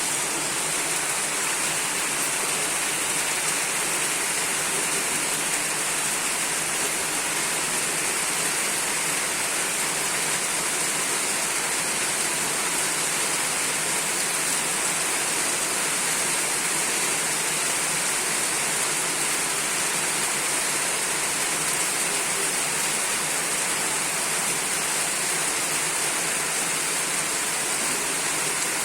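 Heavy rain pouring down in a cloudburst, a steady, even hiss of rain with no let-up.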